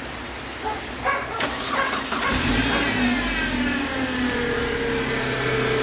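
Mitsubishi Galant's 4G94 four-cylinder engine cranking on the starter, then catching about a second and a half in and running, its speed dropping back to a steady idle. This is the crank-no-start engine firing once the camshaft has been swapped to correct the cam sensor signal.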